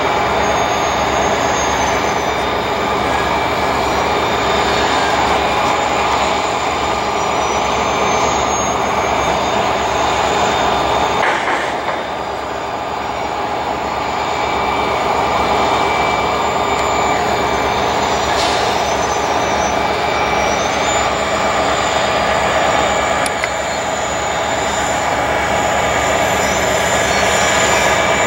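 Canadian Pacific continuous welded rail train's rail-carrying cars rolling past at steady speed, a continuous rumble with several steady high tones from the wheels and rails. The sound dips briefly a little before the middle.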